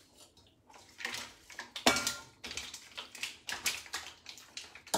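Kitchen tongs working through spaghetti and mussels in a metal sauté pan: irregular clinks and scrapes of metal and shells, with the sharpest clink about two seconds in.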